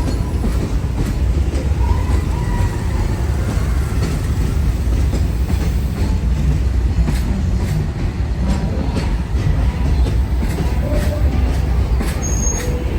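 Passenger train rolling past at speed: a steady, heavy low rumble with the wheels clicking over rail joints again and again.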